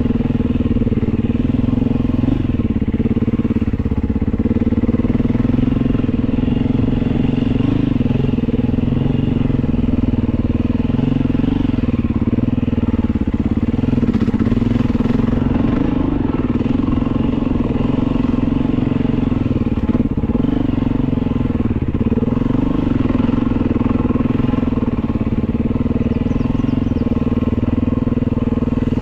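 Beta 500 dirt bike's single-cylinder four-stroke engine running continuously under way, its pitch wavering a little up and down with the throttle.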